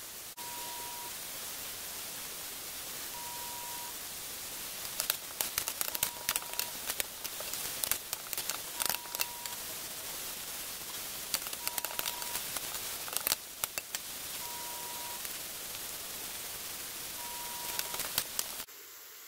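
Sliced onions sizzling in hot oil in a stainless steel pressure cooker: a steady hiss, with bursts of crackling from about five seconds in. A short high beep sounds about every three seconds throughout.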